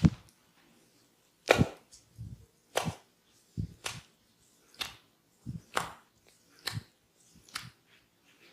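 Hands striking the body in a percussive massage: a string of sharp slaps, about one a second, some coming in quick pairs.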